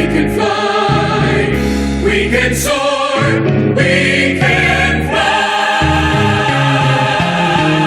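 Choir singing a hymn with accompaniment, in long held chords that change every second or so.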